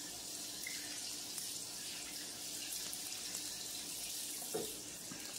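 Kitchen faucet running into a white farmhouse sink as hands are rinsed under the stream, a steady rush of water, with a light knock about four and a half seconds in.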